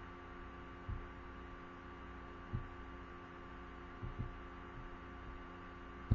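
Steady electrical hum with several fixed tones, broken by a few faint low thumps and a sharp computer-mouse click near the end.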